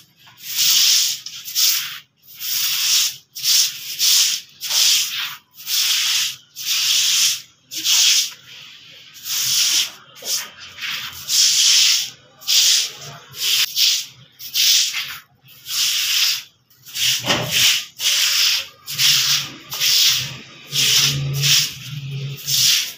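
Stiff stick broom sweeping a wet concrete floor in short, regular scratchy strokes, a little more than one a second, with a brief lull about nine seconds in.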